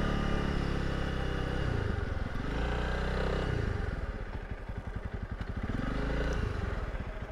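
Honda CRF300 Rally's single-cylinder four-stroke engine as the bike slows down. The engine note drops in two steps, about two and three and a half seconds in, then runs at low revs with an even, slow pulse as the bike rolls up to a stop.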